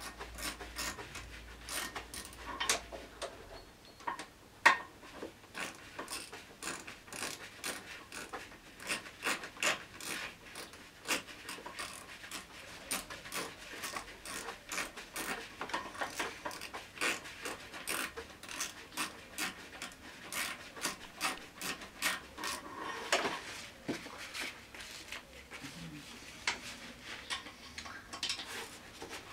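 Socket ratchet clicking in runs of quick strokes, working the nuts on a scooter's cylinder head, with one sharper, louder knock about five seconds in.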